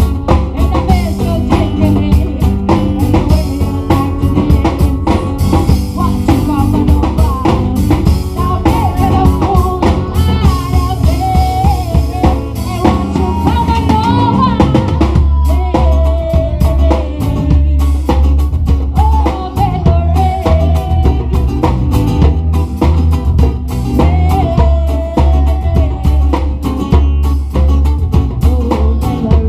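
Live band: a woman singing into a microphone over acoustic guitar and drums, with a heavy bass line underneath.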